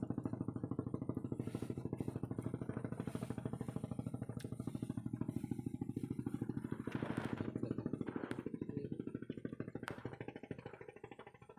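A small engine running steadily with a rapid, even putter, fading away near the end.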